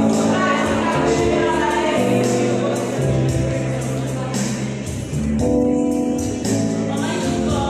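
Gospel praise music: a choir singing over a band with bass and a steady beat of tambourine-like percussion.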